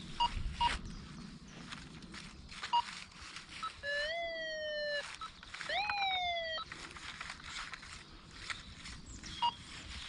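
Go-Find metal detector giving two target tones, each about a second long, rising quickly and then sliding down in pitch, around four and six seconds in, with a few short high beeps before and after. Ground and leaf rustle runs underneath.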